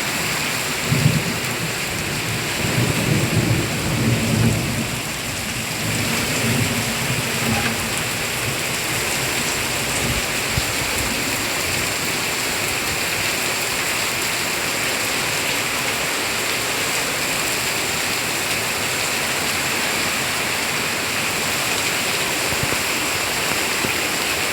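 Heavy tropical rain pouring down steadily. A roll of thunder rumbles through it during roughly the first six seconds.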